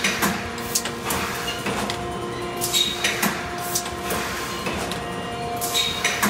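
Plastic thermoforming machine running in cycle. Clacks and short hisses repeat in the same sequence about every three seconds over a steady machine hum.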